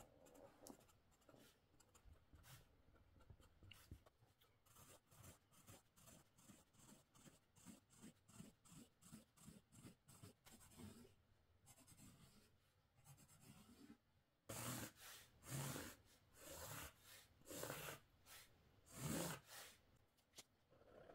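Faint scratching of a felt-tip pen dragged across stretched canvas in short repeated strokes, about two a second, as it draws hatch lines. About halfway through come a handful of louder, longer scrapes.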